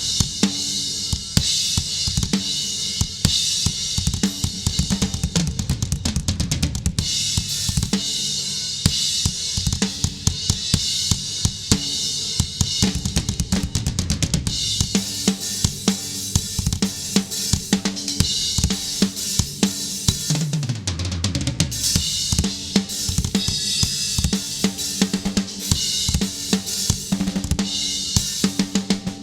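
Drum kit played in a steady groove: bass drum, snare, hi-hat and cymbals hitting continuously, with a fill about two-thirds of the way through. It is close-miked with inexpensive Digital Reference drum mics and shaped with EQ, a little reverb and compression.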